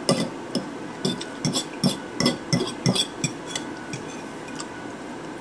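Metal fork clinking and scraping against a plate while eating, a quick irregular run of about a dozen clicks that thins out about four seconds in.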